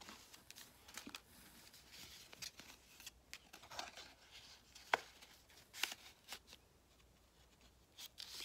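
Paper greeting cards and a paper envelope being handled: faint rustling and sliding of paper with scattered light clicks and taps, one sharper tick about five seconds in.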